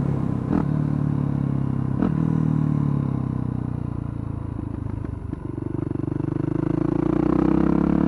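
Yamaha dirt bike engine running under way, easing off and quieter for a couple of seconds mid-way, then pulling louder again near the end. Short clicks about half a second in, about two seconds in and past five seconds are gear changes made without the clutch.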